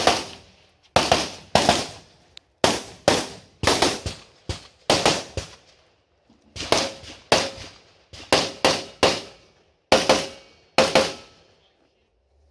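AR-style semi-automatic carbine firing rapid shots, mostly in quick pairs and short strings, about two dozen in all, each with a short ringing echo. The shots pause briefly a little past the middle and then resume.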